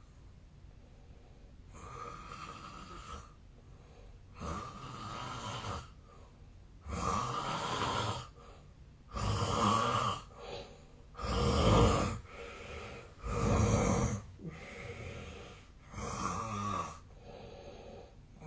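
A man snoring heavily in his sleep: a steady run of rasping snores about a second each, one every couple of seconds, growing louder toward the middle and easing off near the end.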